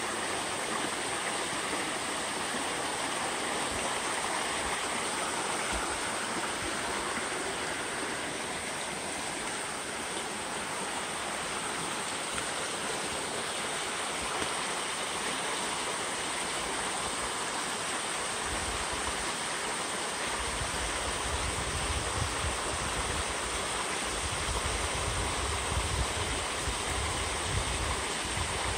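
Steady rushing of a rocky brook cascading over stones and a small waterfall. A low rumble joins in for the last third.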